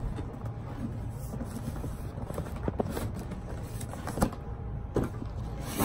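A cardboard shoebox handled and opened close to the microphone: low handling rumble with a few faint knocks and rustles.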